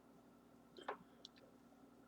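Near silence with faint eating sounds: one short wet click a little under a second in, then a couple of fainter ticks.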